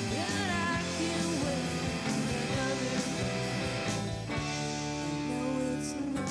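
Indie rock band playing live: a woman singing over a hollow-body electric guitar and a drum kit.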